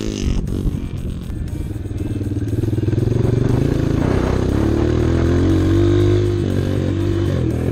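Honda CRF230 dirt bike's single-cylinder four-stroke engine running under throttle on a trail, its pitch climbing from about two seconds in, easing briefly near the end and climbing again.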